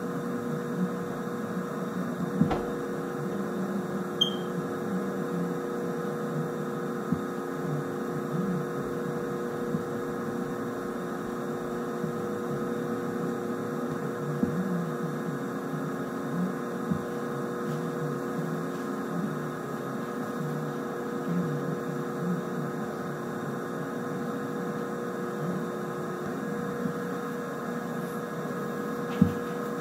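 Steady electrical hum made of several held tones over a low hiss, with a few sharp clicks, the loudest near the end.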